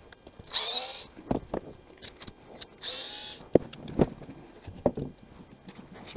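A power screwdriver whirs in two short bursts, undoing the screws that hold a string trimmer's front assembly. Sharp clicks and knocks of the plastic parts being handled come between and after the bursts.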